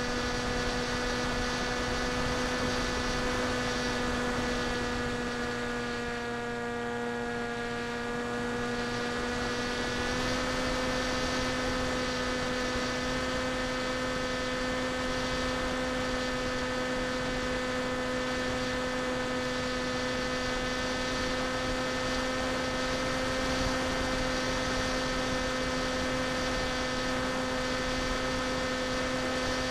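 FPV quadcopter's electric motors and propellers, heard from the onboard camera as a steady whine. It dips slightly in pitch and level about six seconds in, then steps back up about ten seconds in.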